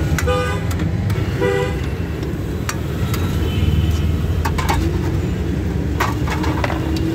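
Two short vehicle horn toots about a second apart, over a steady low rumble of street noise. A few light clicks follow later.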